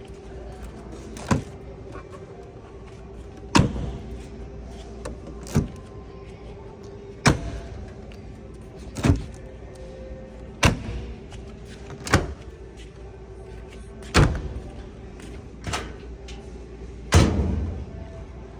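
Washing machine doors or lids being banged shut again and again, about ten sharp knocks spaced a second and a half to two seconds apart, over a steady low hum.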